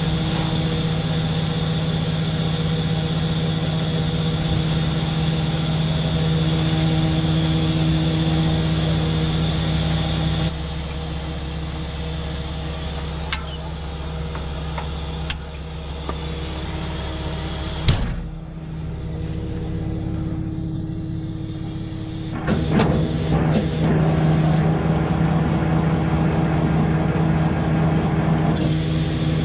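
A tow truck's engine running steadily, with a few sharp clicks between about 13 and 18 seconds in, as the winch gear is handled.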